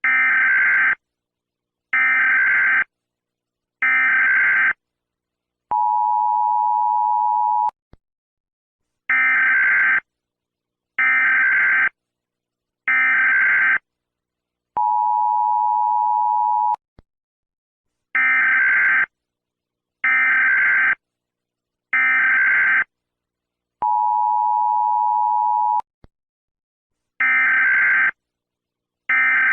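Emergency Alert System tones: three one-second bursts of digital SAME header data, then a two-second steady two-note attention signal, the sequence repeating three times.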